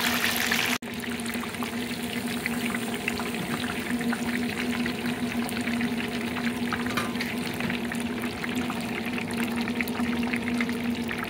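Catfish pieces deep-frying in a basket deep fryer: the hot oil sizzles and crackles steadily, with a steady low hum underneath.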